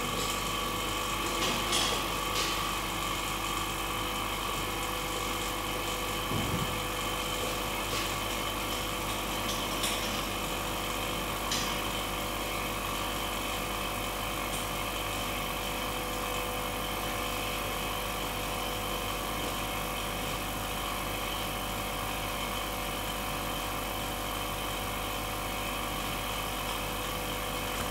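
Vacuum pump running steadily while it evacuates the chamber: a constant mechanical hum made of several fixed tones over a hiss. A few light clicks come in the first twelve seconds.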